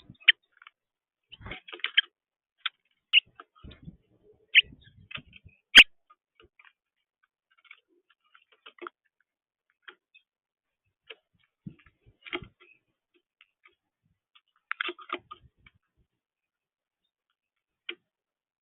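Irregular short clicks and ticks scattered through near-silent gaps, with a sharp, louder click about six seconds in.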